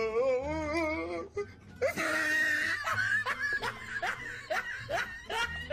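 A wavering, pitched cry, a loud burst at about two seconds, then a run of short rising laughing calls about every half second, with music underneath, as a loose baby tooth is yanked out with dental floss.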